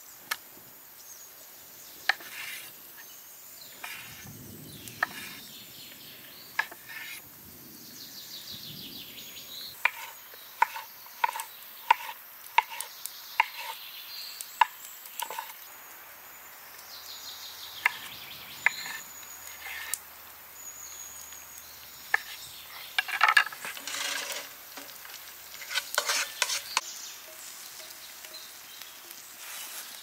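A knife cutting vegetables on a wooden board, a series of sharp knocks with a quick run of chops about a third of the way in. Later, a frying pan over a wood fire sizzling and being stirred, with the loudest clatter near the end.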